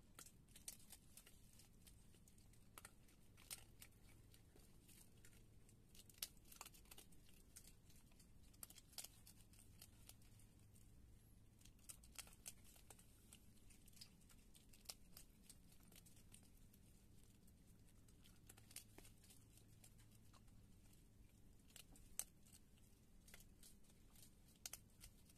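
Faint, irregular crunching clicks of a skunk chewing dry kibble, with a few sharper crunches standing out, over a faint low hum.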